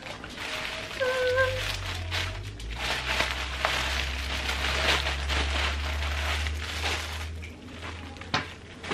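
Packaging rustling and crinkling as a parcel is unwrapped by hand, dense and crackly, with a low hum underneath for most of it and a sharp click near the end.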